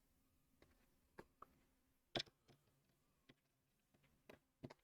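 Faint, scattered clicks of plastic LEGO bricks being handled and fitted together, with one louder click about two seconds in.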